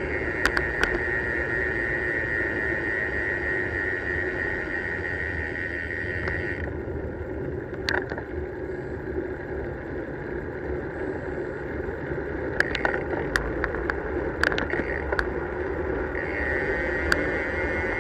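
Wind rushing over the microphone and tyre noise from a bicycle rolling along a tarmac road, with scattered sharp clicks and knocks from the bike over the road surface. A high steady whirr runs over it, drops out about seven seconds in and returns near the end.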